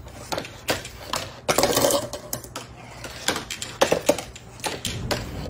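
A marble rolling down a homemade run of paper and cardboard chutes, clattering as it goes, with a string of clicks and knocks as it drops from ramp to ramp and a longer rolling rattle about two seconds in.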